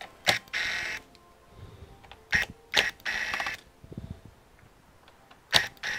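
Small electric screwdriver whirring in three short bursts, each just after a sharp click, backing out the bottom-case screws of a laptop.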